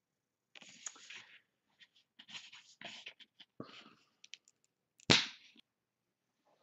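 Handling of thin paper napkin pieces and art supplies on a table: rustling and small clicks in short spells, then one sharp knock on the tabletop a little after five seconds in.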